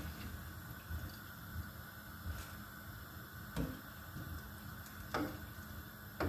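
A metal utensil knocks and clinks against a cooking pot three times, each knock ringing briefly, over a steady low hiss while french fries are fished out of the pot.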